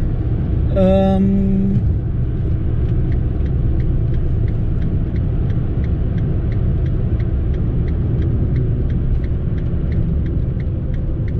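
Fiat Panda on the move, a steady low road and engine rumble heard inside the cabin. From about three seconds in, the turn indicator ticks evenly at about three ticks a second. A short pitched tone sounds about a second in.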